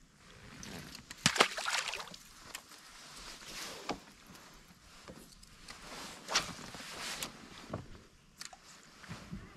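Handling noises of an angler working a fish and a fishing rod on a boat deck: a loud rushing, crackling burst about a second in, then a few shorter knocks and rustles.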